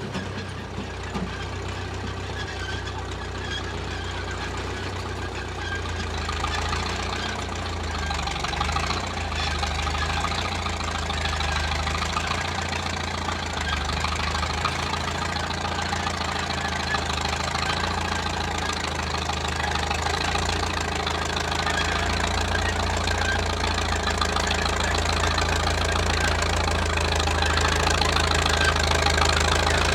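Engine of a 1934 Caterpillar crawler bulldozer running steadily while working, growing gradually louder.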